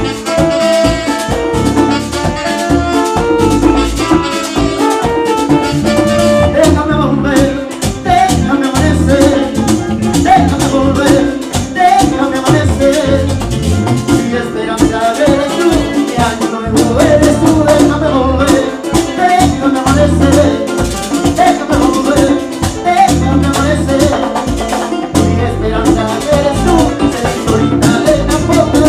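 A live tropical Latin band playing, with electric guitar, bass, drums and a steady shaken rattle in the percussion, saxophone, and a singer's voice at times.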